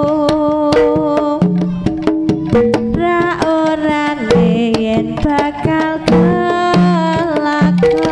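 Live Javanese jaranan gamelan music: sharp, regular hand-drum strokes and held metal-chime notes, with a wavering melody line above them.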